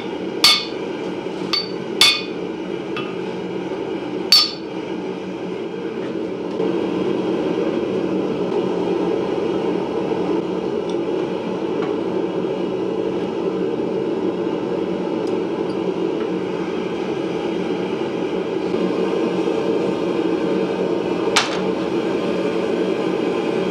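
About five ringing hammer blows on the steel sickle blade at the anvil in the first four and a half seconds. After them a steady low rushing, plausibly the running forge, which grows louder about six and a half seconds in. One more sharp clink comes near the end.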